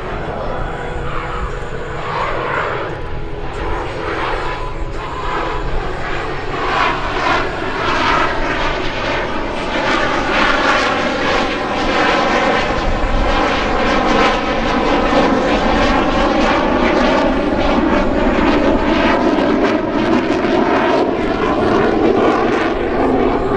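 Twin jet engines of a CF-18 Hornet (General Electric F404 turbofans) running during a low demonstration pass, growing louder over the first half and then holding loud, with a slowly shifting whooshing tone as the jet moves.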